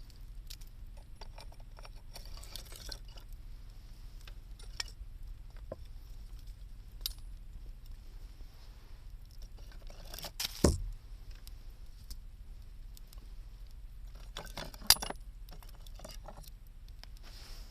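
Wood fire crackling with scattered small pops and clicks over a low steady rumble. A loud knock comes about ten and a half seconds in, and a sharp snap comes near fifteen seconds.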